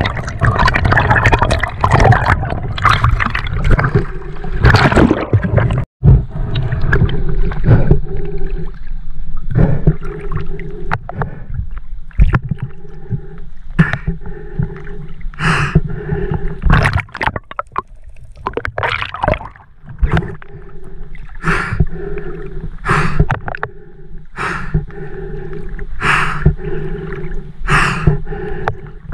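Sea water rushing and bubbling around an underwater camera at first; after a brief cut about six seconds in, water lapping and gurgling against the camera held at the surface by a swimmer. Short sharp splashes recur about every second and a half.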